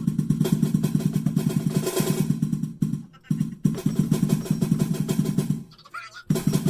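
Music with fast, even drumming. It breaks off briefly about three seconds in and again near the end.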